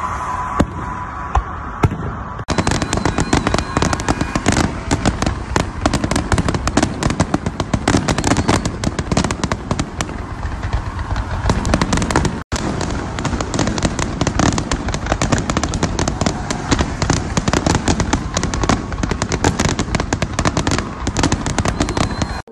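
Fireworks display: aerial shells bursting with dense, rapid crackling. It becomes a near-continuous barrage after a couple of seconds.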